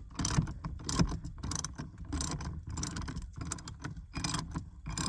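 Socket ratchet clicking in repeated quick strokes as a 16mm seat-belt anchor bolt is cranked loose.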